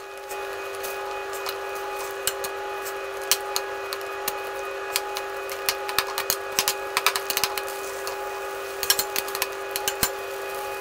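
Metal tongs clinking and scraping against a steel wok while stirring noodles in broth: irregular sharp clicks that bunch up in the middle and again near the end, over a steady hum.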